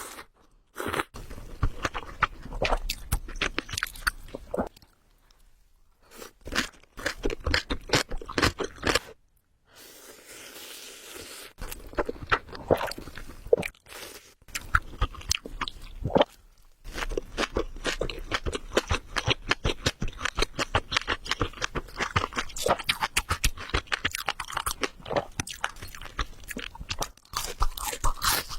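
Close-miked mouth sounds of someone eating spicy ramen: chewing with dense crackly clicks, going quiet briefly twice, about five and nine seconds in.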